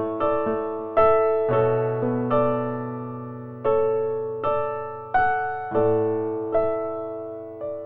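Background music: a slow, gentle piano melody, each note struck and left to fade, about one or two notes a second.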